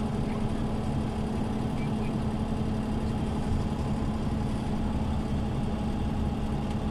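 Scania OmniLink city bus engine running at a steady speed, a constant low hum with no change in pitch.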